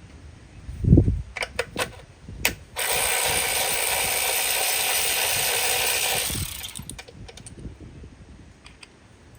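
A power tool runs steadily for about three and a half seconds, spinning out a 10 mm ignition-coil bolt. Before it come a low thump and a few sharp clicks of the tool and socket being handled.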